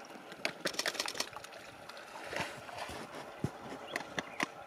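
Water splashing and sloshing around a white rhinoceros wading in a muddy waterhole and working its snout in the water: short irregular splashes, a quick run of them about half a second to a second in and a few more later.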